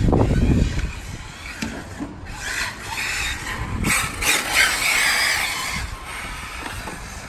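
Arrma Typhon electric radio-controlled car driving on asphalt: its motor whines and its tyres scrub as it turns close by, loudest about four to five seconds in. A low rumble at the very start.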